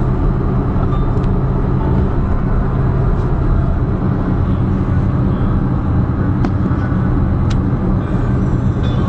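Steady low rumble of a moving vehicle, with a few faint ticks over it.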